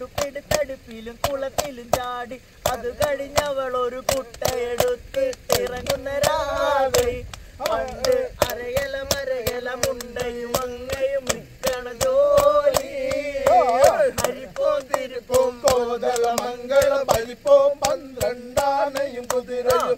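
Men singing a song together, with steady, fast hand clapping, about three to four claps a second, keeping the beat.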